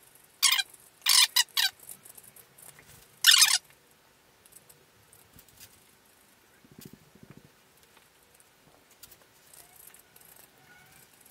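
Boiled potato grated on a metal box grater: four short, loud scraping strokes in the first few seconds, then only faint scraping and handling sounds.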